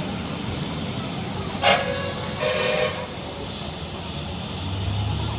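Steady hissing noise, with one sharp clink about a third of the way in and a brief ringing tone just after it.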